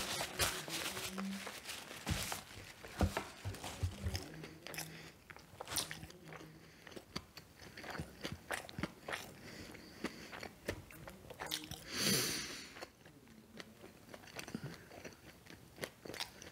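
Close-up chewing and biting of McDonald's fast food: irregular wet mouth clicks and crunches. About twelve seconds in comes a brief, louder rushing noise.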